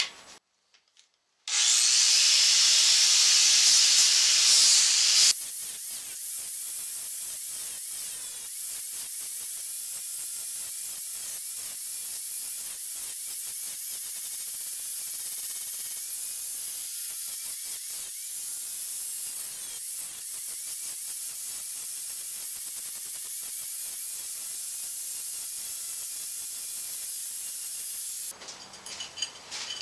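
Steady hissing noise, louder for a few seconds after a short dropout near the start, then even and unchanging for over twenty seconds before it cuts off near the end.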